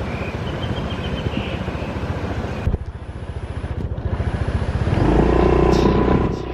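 Motorbike engine running with a rapid, even throb. It drops suddenly a little before the middle, then grows louder about five seconds in, with a steady whine on top.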